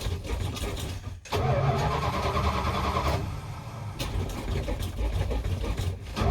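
Old truck's starter cranking the engine over without it catching, in several attempts with short breaks between them: a hard start.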